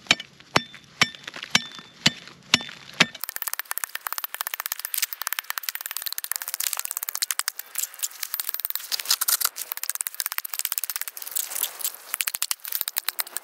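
Hand tools breaking through thin pond ice. About seven sharp hits come roughly half a second apart, then a dense, fast crackling rattle as the ice is cut and broken up in the hole.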